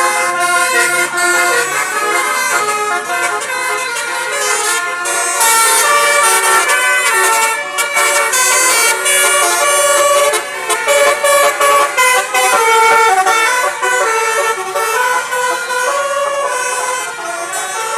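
A bus's Basuri telolet horn, a set of multi-trumpet musical horns, playing a melody of stepping notes with several tones sounding together. It breaks off briefly a few times, with a run of short choppy notes past the middle.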